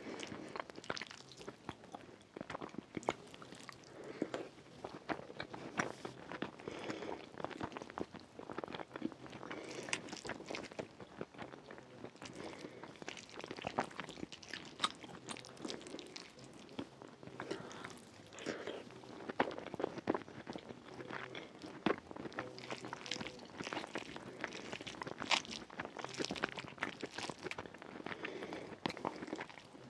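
Close-miked mouth sounds of a person eating rfissa, Moroccan chicken with lentils on shredded flatbread, by hand: irregular chewing and mouth clicks throughout, with fingers picking through the soft food.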